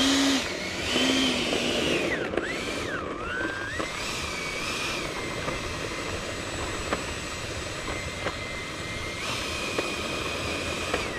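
E-flite F-16's 70 mm electric ducted fan whining as the model jet taxis on the ground under throttle. The pitch drops and climbs back twice in the first few seconds, holds steady, rises a step about nine seconds in, then spools down at the end.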